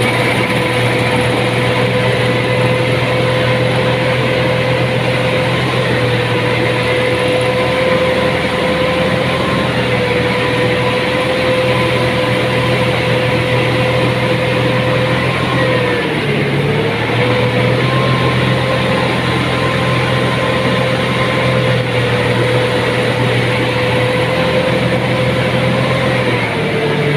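Rice combine harvester running steadily, its engine and threshing machinery giving a constant whine. The pitch dips briefly twice, about two-thirds of the way through and again near the end, as if under momentary load.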